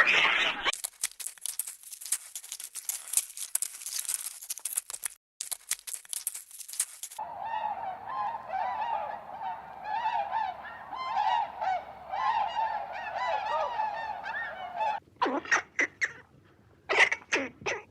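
A flock of geese honking, many overlapping calls at once, with a few louder single honks near the end; a rushing noise with no calls takes up the first several seconds.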